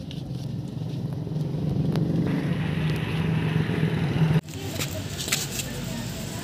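A motor vehicle engine running with a steady low hum, which cuts off suddenly about four and a half seconds in. After that, soapy hands rubbing together with a few wet crackles.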